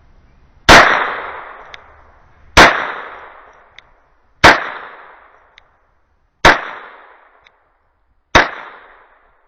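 Five .22 LR shots of Armscor ammunition fired at a steady pace, about two seconds apart, each ringing out in a long echoing decay, with a light tick about a second after each shot.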